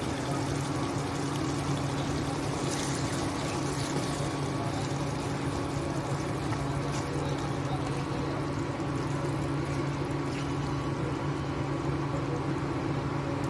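Prawn and vegetable bhaji simmering and sizzling in a non-stick pan: a steady hiss and bubbling, with a low steady hum underneath.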